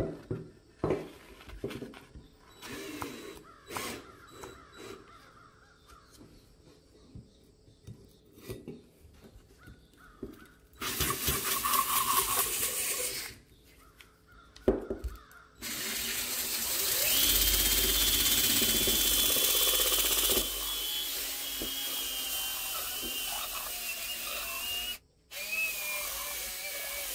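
Cordless drill spinning a polishing bob inside a metal airgun tube, first in a short run, then steadily, with a high whine that drifts slowly lower. Before that, scattered clicks and knocks of metal parts being handled on a wooden bench.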